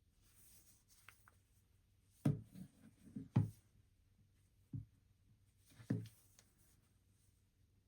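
Hands handling objects: a few soft knocks and rubs, the loudest around two and a half and three and a half seconds in, with others near five and six seconds.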